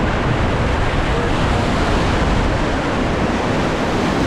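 River rapids rushing: a loud, steady wash of whitewater noise.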